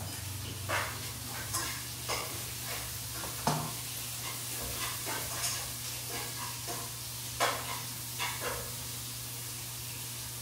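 Food sizzling in a frying pan while a utensil scrapes and stirs it, with about eight irregular clatters of the spoon against the pan, the sharpest about three and a half seconds in. A steady low hum runs underneath.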